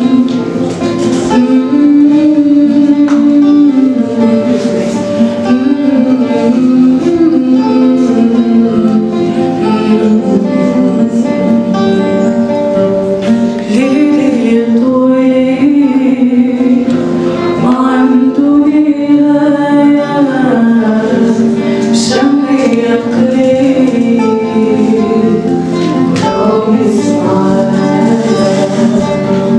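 A woman singing a melody with long held notes into a microphone, accompanied by a strummed acoustic guitar.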